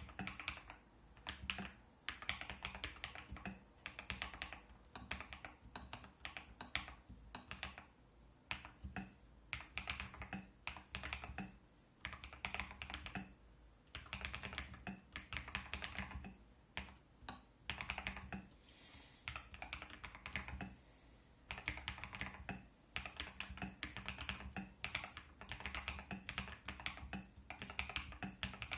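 Typing on a TM680 mechanical keyboard with Akko CS Lavender Purple tactile switches: quick runs of keystrokes, each lasting a second or two, with short pauses between them.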